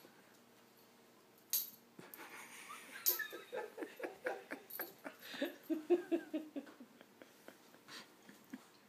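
A small dog making a fast run of short, pitched vocal noises, several a second, for about four seconds while it struggles to free a toy caught in its collar. Two sharp clicks come just before.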